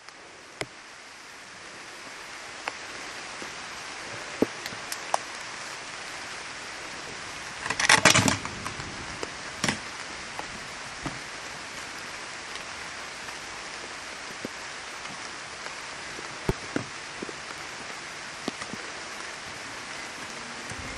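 Water ambience: a steady rain-like hiss that fades in, with scattered drips and ticks and a louder burst of noise about eight seconds in.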